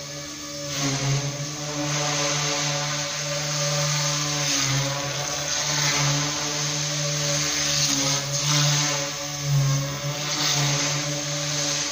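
Small electric RC model plane's motor and propeller buzzing steadily in flight, its pitch and loudness dipping and rising a few times.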